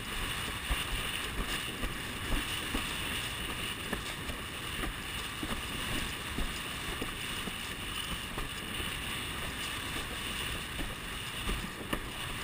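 Rush of wind over the boom-mounted camera while a windsurf board sails fast across small chop, with irregular slaps of the hull on the waves.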